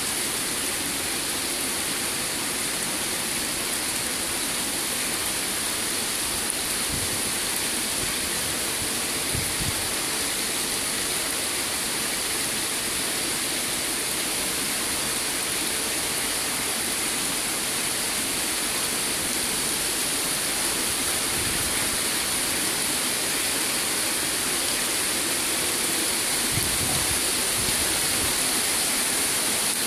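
Water jetting from a white PVC inflow pipe and splashing steadily onto the surface of a fish-rearing tank, a constant rushing hiss.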